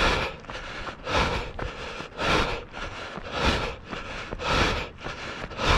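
A runner breathing hard and rhythmically while running, one loud breath about every second.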